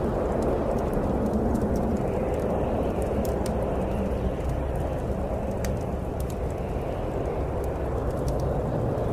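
Steady snowstorm wind with the small, sharp crackles of a burning wood fire scattered through it.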